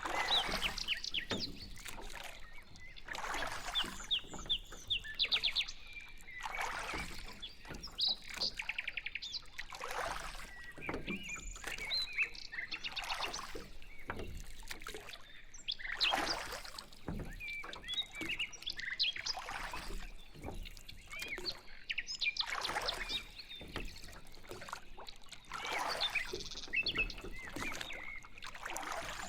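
A small boat being rowed: oar strokes swish through the water about every three seconds. Birds chirp and give short fast trills between the strokes.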